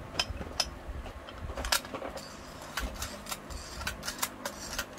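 Handling noise from a small hand-held cigarette-making machine: a string of irregular sharp clicks and rattles as it is turned over and worked by hand, the loudest a little before two seconds in.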